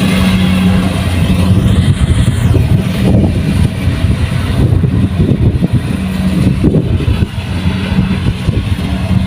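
Kubota combine harvester's engine and machinery running continuously with a steady low hum.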